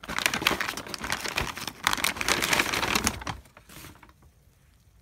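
Packaging crinkling and rustling as items are lifted and moved about in a cardboard box lined with bubble wrap, busy for about three seconds, then dying down to faint handling sounds.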